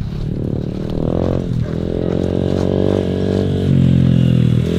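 Small clutchless semi-automatic pit bike engine running under a rider. The revs climb, dip briefly about a second and a half in, then run steadier and grow louder as the bike comes closer.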